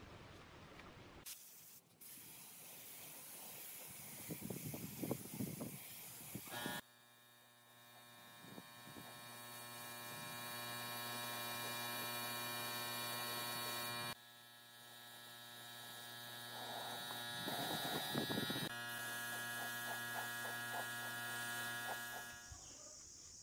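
Compressed-air spray gun spraying clear finish onto wood: a steady hiss over a steady electric hum, broken off abruptly twice by cuts.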